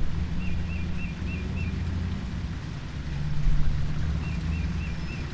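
A bird calling in runs of four quick chirps, twice, over a steady low rumble.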